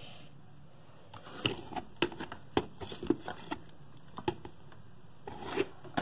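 Handling noise: a scatter of light clicks and knocks, with some rubbing, starting about a second in, as the phone camera is moved around plastic tubs on a table.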